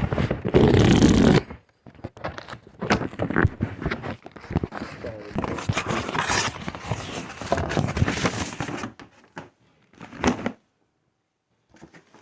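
A sneaker package being opened by hand: a loud ripping rush in the first second and a half, then a long run of irregular paper and cardboard rustling, crinkling and handling clicks, with one more short burst about ten seconds in.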